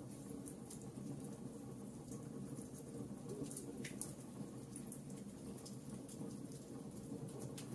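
Wood fire burning in a fireplace: a steady low rumble of flames with frequent small, sharp crackles and pops from the burning logs.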